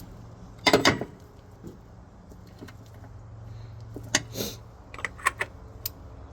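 Oil filter cap wrench working on the oil filter housing cap: a loud metallic clatter about a second in, then a few sharp separate clicks over a steady low hum.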